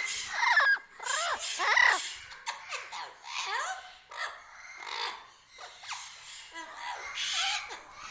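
Animal calls: a rapid run of short squeals and yelps, each sliding up and down in pitch, loudest in the first two seconds.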